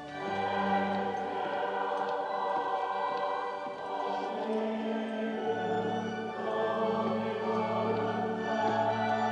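A choir singing slow, sustained chords, with long held low notes underneath that change about halfway through.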